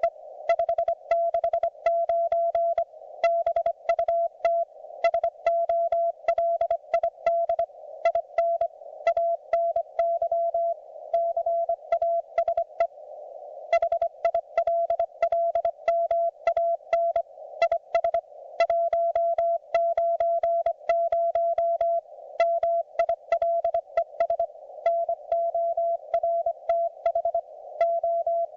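Morse code (CW) from a YouKits HB-1B QRP transceiver on the 40 m band: a single steady tone keyed on and off in dots and dashes, with a soft hiss of band noise behind it and a faint click on each element. The sending pauses for under a second a little before the middle, then carries on.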